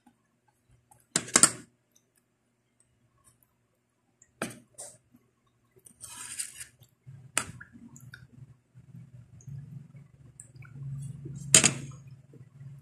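Eating at a table: utensils click against ceramic plates and a bowl a few times, the loudest about a second in, with mouth sounds from slurping noodles off chopsticks near the end.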